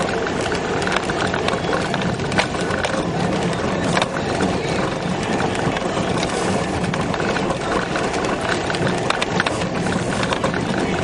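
Peugeot car driving over a rough, muddy dirt track: engine running under a constant clatter of knocks and rattles from the suspension and body as the wheels drop into ruts and puddles.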